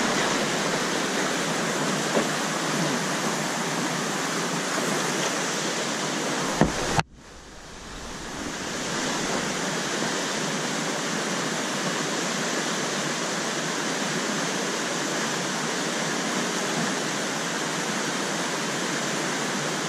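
Whitewater rapids rushing steadily. About seven seconds in there is a short knock, then the sound drops away abruptly and swells back up over a couple of seconds.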